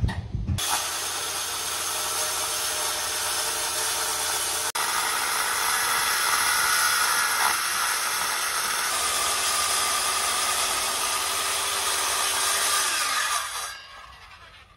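Electric woodworking power tool cutting or planing wood, running steadily, then its motor winding down near the end.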